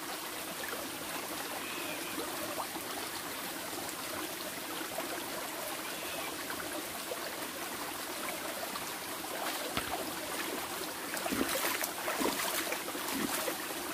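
Shallow mountain stream trickling steadily over rocks. From about ten seconds in come a few splashes of hands working in the water.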